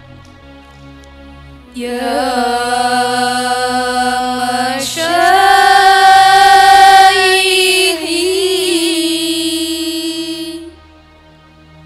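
A group of girls chanting Arabic verse (nazom) together into microphones over soft steady backing music. The chant comes in about two seconds in as three long held phrases and stops about a second before the end, leaving only the backing.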